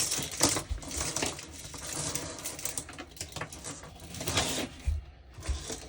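A set of clip-on candle Christmas lights being handled, the clips and bulb holders clicking and clattering against each other in irregular small knocks. A couple of soft thumps come near the end.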